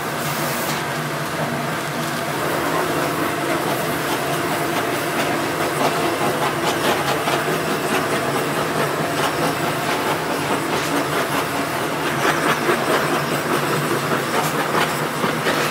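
Handheld butane blowtorch flame hissing with a fluttering roar as it sears the skin of braised pig's trotters. It grows louder about two to three seconds in, over a steady kitchen hum.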